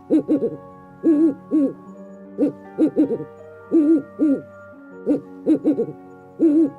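An animal giving short, hoot-like calls that rise and fall in pitch, about fifteen of them in clusters of one to three, over soft background music with held notes.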